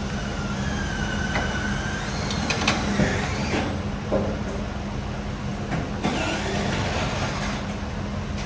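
A few short metallic squeaks and clicks of rear-axle parts and bolts being fitted under a car, over a steady background hum.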